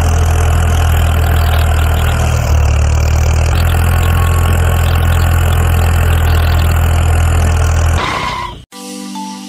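A tractor engine running steadily with a deep hum. It fades out and cuts off about eight and a half seconds in, and a short marimba-like mallet melody begins.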